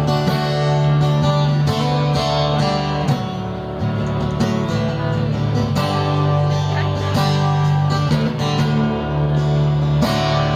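Live band playing an instrumental passage between sung lines of a slow country song, carried by strummed acoustic guitar chords over a sustained bass.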